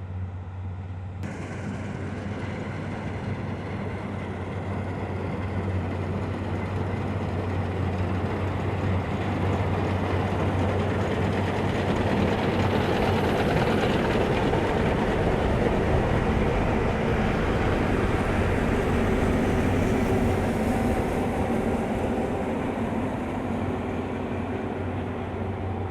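Heavy farm machinery engine running steadily with a low hum. It grows louder over the first ten seconds or so, as if coming closer, then holds.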